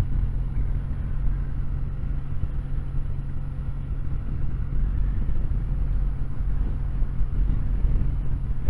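Kawasaki W800's air-cooled parallel-twin engine running steadily under way, with wind and road noise.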